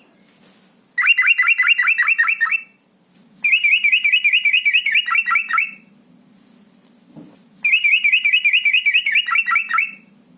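Yellow-vented bulbul (trucukan) singing its fast rolling 'ropel' song: three bursts of rapid repeated chirping notes, each two to three seconds long, with short pauses between.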